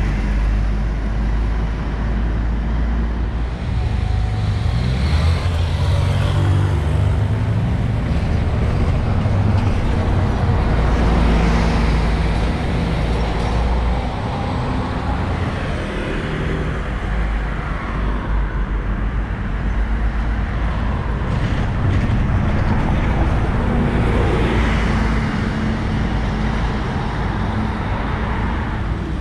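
Road traffic: a diesel city bus's engine pulling away and fading, with cars and a light truck passing at intervals.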